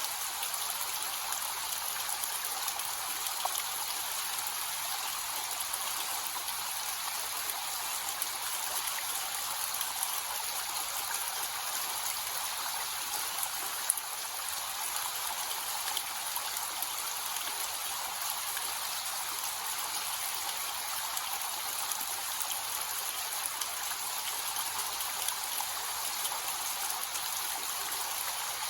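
Small, low-flow waterfall: water falling and splashing in a steady, even hiss without much deep rumble. One brief sharp click about halfway through.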